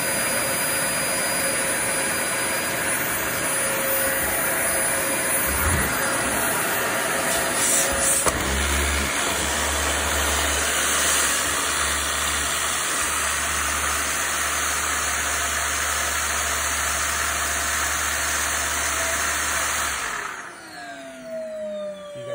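Dyson DC40 upright vacuum cleaner switched on as a test after a brush bar repair, its motor running loudly and steadily at full suction. A low hum joins about eight seconds in. Near the end it is switched off and the motor winds down with a falling whine.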